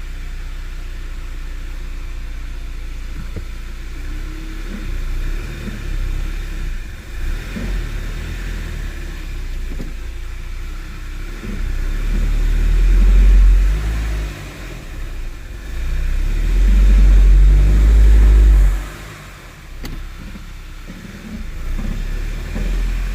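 2011 Audi A3's 2.0-litre turbocharged four-cylinder engine running with the transmission put in gear, a steady low rumble that grows much heavier twice, about halfway and again about two-thirds through. It is not misfiring at this moment.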